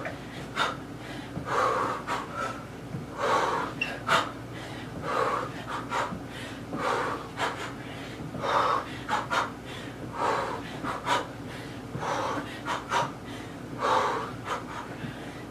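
A person breathing hard to recover after a high-intensity kickboxing interval, with heavy in-and-out breaths in a steady rhythm of about one a second. A few sharp clicks come in between.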